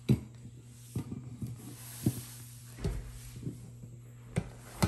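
Irregular soft knocks and thumps of nonstick pots, pans and a glass lid being handled and set down on a wooden table, about seven in all, over a steady low hum.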